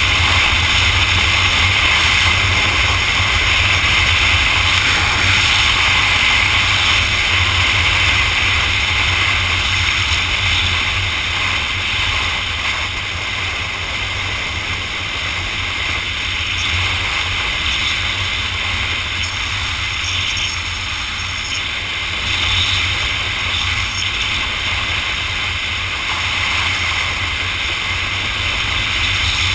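Motorcycle cruising along a road: steady engine running under a rush of wind and road noise, easing a little in the middle.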